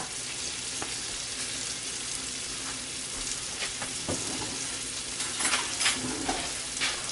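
Food sizzling in a hot frying pan, a steady hiss, with a few light clicks about four and six seconds in.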